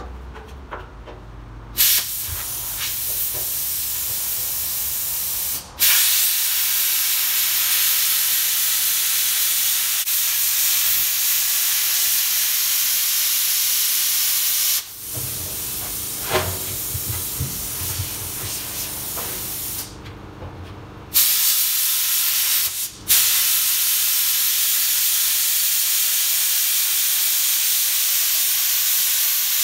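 Plasma cutter cutting through the steel wall of a 55-gallon drum: a loud, steady hiss that starts abruptly. It stops and restarts sharply several times, with a pause of about a second partway through.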